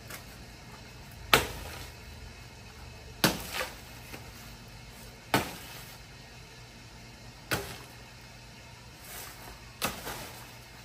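A blade chopping into a felled banana stalk: sharp strikes about every two seconds, one of them followed quickly by a second lighter blow.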